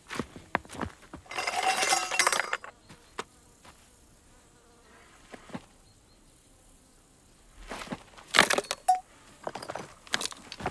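Stones and loose earth being handled at the edge of a dug pit: sharp clinks and knocks of rock on rock, a rough scraping rustle about a second and a half in, then another cluster of knocks about eight seconds in.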